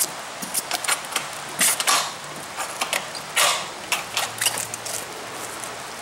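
Side door of an enclosed cargo trailer creaking and clunking as it is swung on its hinges and door spring, with irregular knocks of feet stepping up onto the threshold and into the trailer, over a steady hiss of rain.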